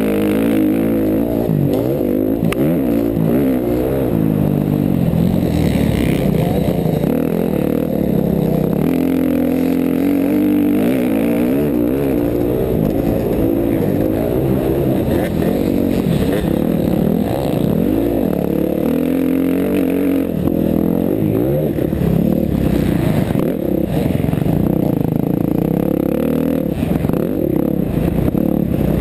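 KTM 350 XC-F's single-cylinder four-stroke dirt bike engine at race pace, its revs rising and falling continuously through throttle changes and gear shifts, heard from a helmet-mounted camera.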